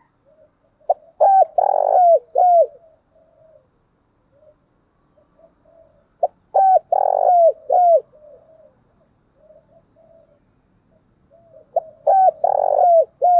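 Spotted dove cooing: three loud call phrases about five seconds apart, each a few short clipped notes around a longer rolling coo, with softer low coos in between. This is the decoy dove's lure calling used to rouse other doves to call.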